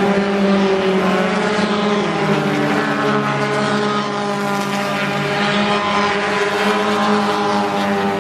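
Four-cylinder stock car engines racing together at high revs, several engine notes overlapping, with one dropping in pitch about two seconds in.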